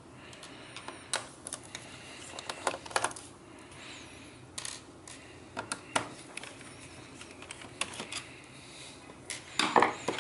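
Irregular small clicks and taps of a screwdriver and loose screws against a laptop's bottom case as the case screws are taken out, with a louder cluster of clicks near the end.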